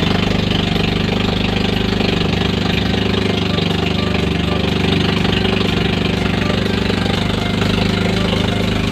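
Small motorboat's engine running at a steady speed while the boat is under way, even in pitch and loudness throughout.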